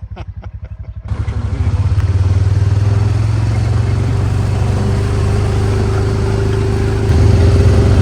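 Honda Pioneer 700-4 side-by-side's single-cylinder engine idling with an even pulse, then throttled up about a second in and running steadily under way with a rushing noise over it, a little louder again near the end.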